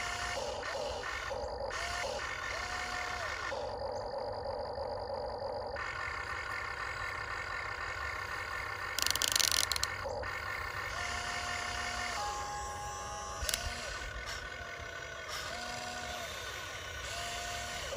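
Huina 1592 RC excavator's electric motors whining as the boom, arm, bucket and swing are worked, one after another: each whine rises in pitch, holds for about a second and drops away. A short loud rasping burst comes about nine seconds in.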